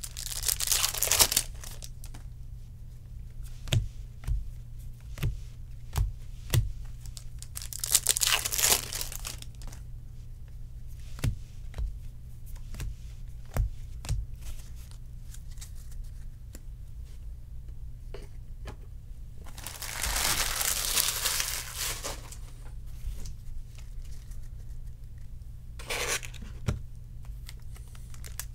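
Foil trading-card pack wrappers being torn open and crinkled by hand, in several bursts of rustling, with light taps and clicks of cards being handled in between.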